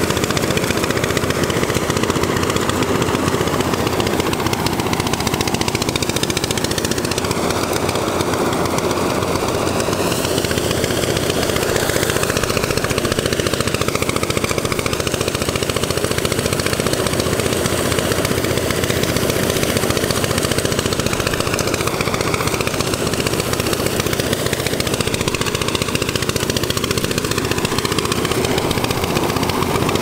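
Small engine-driven rice thresher running steadily, its engine and threshing drum making a continuous rattling machine noise.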